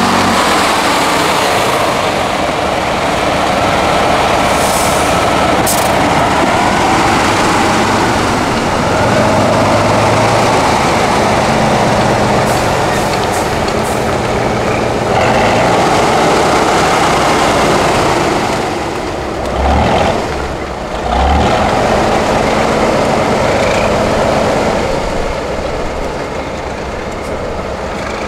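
Tatra 8x8 truck-trial truck's diesel engine revving hard under load as it churns through deep mud. The revs drop briefly twice about twenty seconds in, and the sound fades somewhat near the end as the truck pulls away.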